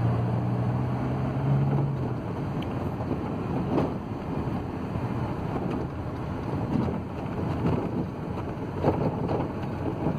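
Ford Transit van's diesel engine running at low speed, heard from inside the cab, with the body and suspension knocking and rattling as the van crawls through deep potholes on an unpaved road. A steady engine drone for the first couple of seconds, then a rough rumble with a few short knocks.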